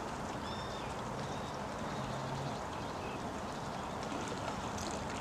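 Steady hiss of rain falling on the sea and shore, with a few faint, short high bird chirps over it.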